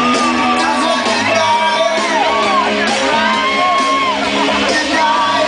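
Loud club dance music from a DJ set playing over a sound system, with people in the crowd shouting and whooping over it.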